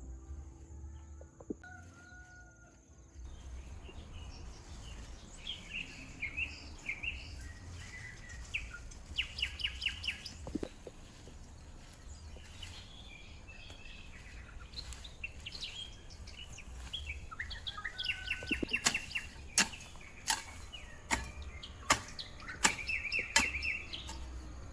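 Birds chirping in short repeated calls, with a run of sharp taps or knocks in the last several seconds.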